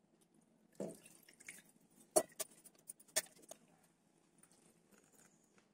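Steel kitchen vessels being handled as masala paste is rinsed out of a mixer-grinder jar: a few light metal clicks and taps, the two sharpest about two and three seconds in.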